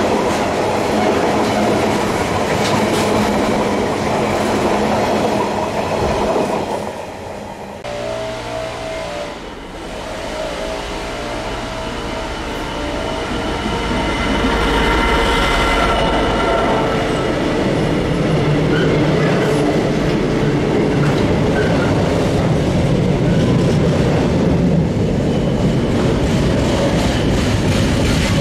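A freight train of rail-carrying flat wagons rolls past and away with a steady rumble; after a break about seven seconds in, a Class 66 diesel locomotive, with its EMD two-stroke V12 engine, approaches and passes hauling a container train, the engine loudest about halfway through. Its container wagons then rumble and clatter steadily past.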